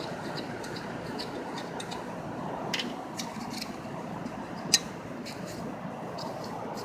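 A few light metallic clicks and taps from hand tools, with one sharp click about two thirds of the way in, over a steady background hiss.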